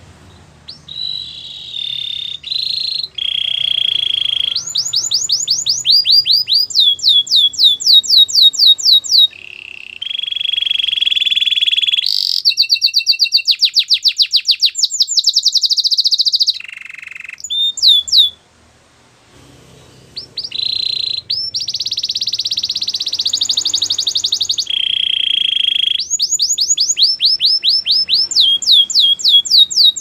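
White canary singing a long, varied song: buzzy rolled phrases alternate with fast runs of high, sweeping whistled notes repeated several times a second. There is a short break a little past halfway.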